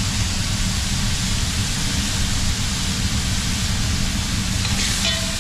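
Steady hiss over a low rumble: vegetables frying in coconut oil in a pot on a restaurant kitchen stove.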